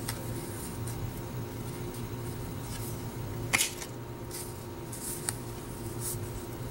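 1990 Fleer baseball cards handled in a stack: a few short papery rustles and taps as cards slide and are turned over, the loudest about three and a half seconds in, over a steady low hum.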